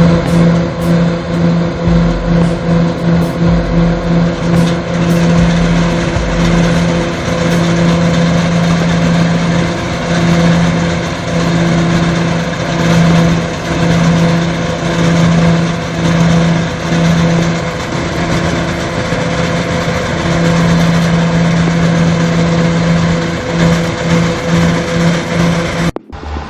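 Engine of a heavy machine running steadily, with a low hum that breaks into rapid pulses at times. It cuts off abruptly near the end.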